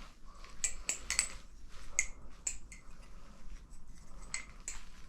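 Hazetac double-edge balisong being flipped through a combo: its handles swing around the blade and knock together in irregular, sharp metallic clicks with a short ring.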